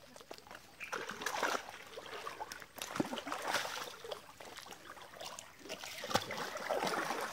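Shallow stream water splashing and sloshing around legs as people wade through it, in uneven bursts.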